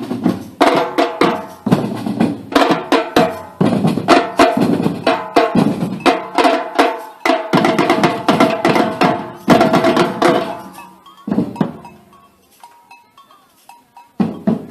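Live drum and percussion music: a fast, even beat of drum strikes with pitched ringing tones. It dies away about eleven seconds in, and a few more strikes come near the end.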